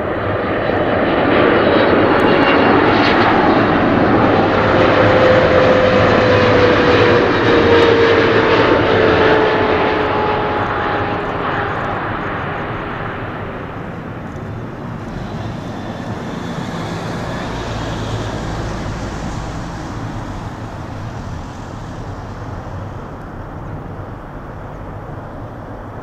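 Boeing 777-300ER's GE90 turbofans passing low on final approach: loud jet engine noise with a whine that falls in pitch as the airliner goes by. The noise fades as it touches down about halfway through, then swells a little again in the rollout, typical of reverse thrust.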